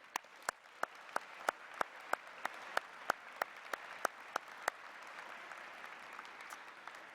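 Audience applauding, with one person clapping loudly and steadily close to the microphone, about three claps a second, until a little past halfway. The general applause then carries on and thins out near the end.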